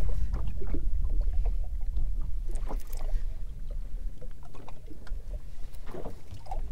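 Small waves lapping against a fishing boat's hull over a steady low rumble of wind and water, with a few light knocks.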